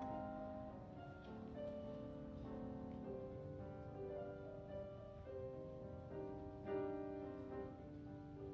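Gentle background music with piano and sustained notes, no speech.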